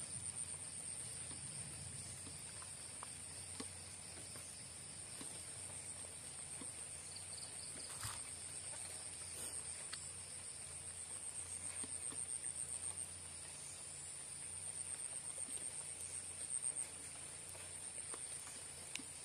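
Night insect chorus: a steady, high-pitched, finely pulsing trill of crickets over a low background hum, with a few faint ticks.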